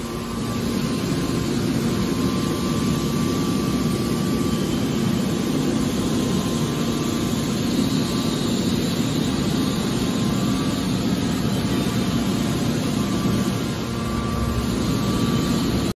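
Hydraulic scrap car baler running: a steady mechanical drone with a constant low hum and a faint steady whine.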